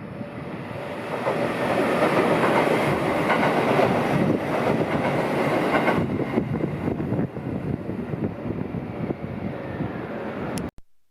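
JR Central 313 series electric multiple unit passing close by, with loud wheel-on-rail rolling noise. The noise builds over the first two seconds, holds, then eases and cuts off suddenly near the end.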